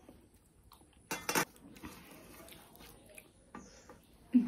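A stainless-steel plate clatters briefly, in two quick knocks about a second in, as fingers work rice against it. Faint scraping and clicking on the plate before and after.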